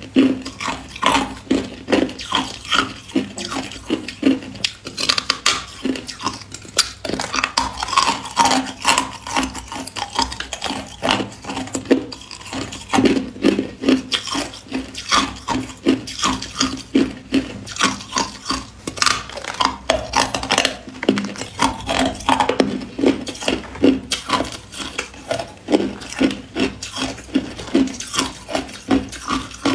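Hard clear ice being bitten and chewed close to the microphone: a dense, irregular run of sharp crunches and cracks, several a second, over a faint steady hum.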